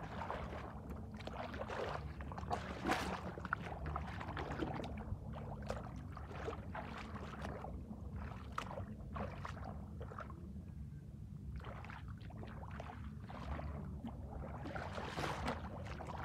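Shallow muddy water splashing and sloshing in irregular bursts as a person wades through it and gropes in the mud by hand, over a steady low rumble.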